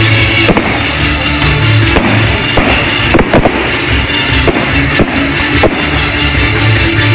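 Fireworks display going off in a rapid, irregular run of bangs and crackles, with music playing at the same time.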